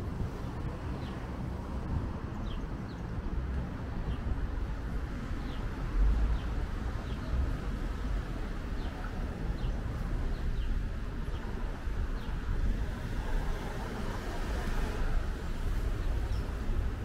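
Street ambience of low, steady traffic rumble, with a small bird giving short, falling chirps about once a second through roughly the first two-thirds.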